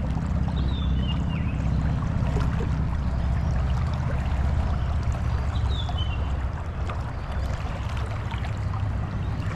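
Creek water rushing steadily over rocks, with a low rumble underneath. Two short, high, falling chirps come about five seconds apart.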